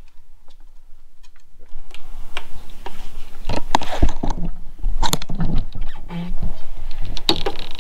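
Irregular scraping, rustling, clicks and knocks of hands-on work at a tractor cab's post, with a cordless drill driving self-tapping screws to fasten wiring conduit. Faint for about the first two seconds, then much louder.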